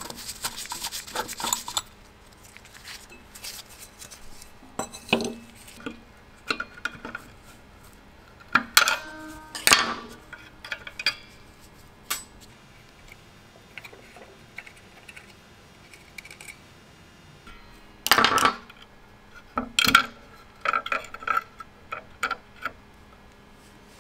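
Irregular metal clinks, clanks and scrapes from a rusty antique Faraday electric fire bell being taken apart by hand, its iron gong unscrewed and lifted off and parts pulled from the striker mechanism. The loudest clanks come in two clusters, about nine and eighteen seconds in, some with a brief ring.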